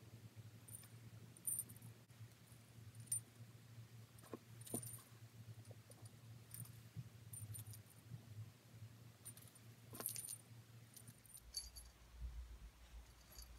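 A small jingle bell sewn onto a stuffed sock doll tinkling faintly now and then as the doll is turned and stitched, over a faint steady hum.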